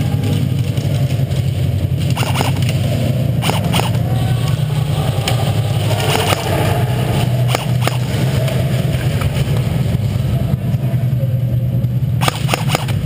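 Steady low hum with scattered sharp cracks of airsoft gunfire, a quick run of them near the end.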